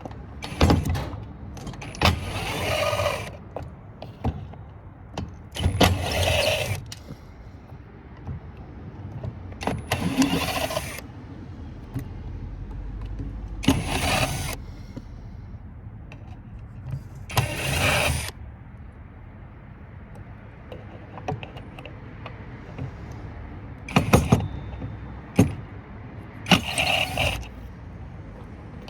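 Power drill-driver running in short spurts of about half a second to a second, around eight times, backing screws out of a circuit board's hardware, with small metal parts clinking between spurts.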